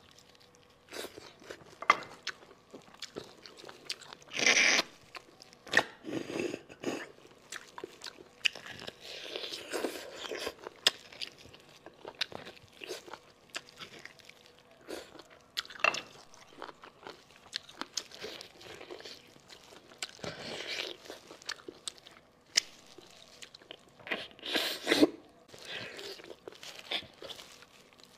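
A person sucking marrow out of a section of spicy braised sheep bone, with wet mouth clicks and smacks, brief chewing and a few stronger sucking rushes about half a second long.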